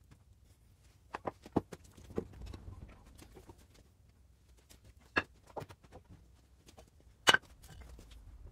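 Solid Angelim Amargoso wood knocking and tapping as a doweled table panel is handled and fitted against the table frame: a few sharp wooden knocks about a second in, two more midway, and the loudest near the end.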